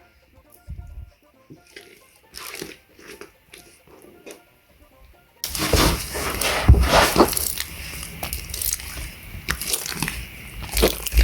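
Slime being handled close to the microphone: a few scattered clicks and taps, then about halfway a sudden, dense crackling squish that carries on as the mix is worked.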